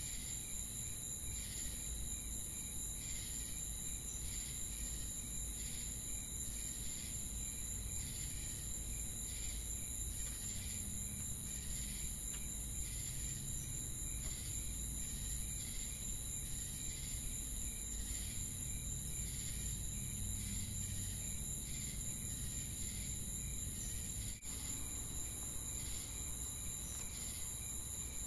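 Ambient chorus of crickets and other insects: a steady high-pitched trill with a regular pulsing chirp repeating through it.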